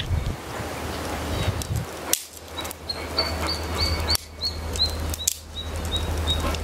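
A bird calling: a short, high chirp repeated about three times a second, starting a couple of seconds in, over a steady low hum.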